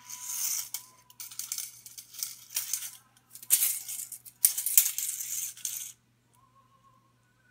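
Steel tape measure blade rattling and scraping across a hard floor in four or five bursts, with a sharp snap near the fifth second, then stopping about six seconds in.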